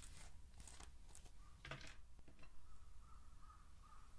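Faint clicks and scrapes of a lip gloss applicator wand being pulled out of its tube. From about three seconds in, faint short calls repeat in the background.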